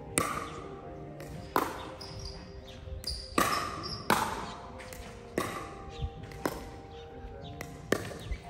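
Racket or paddle hits on a ball in a doubles rally: about eight sharp strikes spaced unevenly, roughly a second apart, each ringing briefly.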